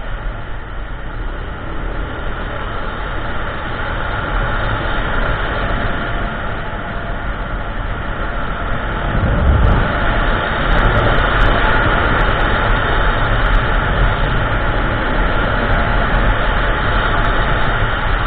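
Kymco Xciting 400i scooter on the move: its single-cylinder engine drones steadily under a rush of wind and road noise, growing louder about halfway through.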